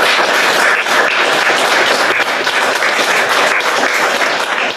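A lecture audience applauding, loud and dense, at the close of a talk.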